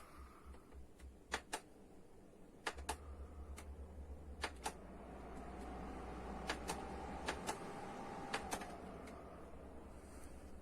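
Honeywell QuietSet tower fan running with a low, pulsing hum and a faint tone that rises and then falls in the middle. About a dozen sharp clicks, often in close pairs, are scattered through it.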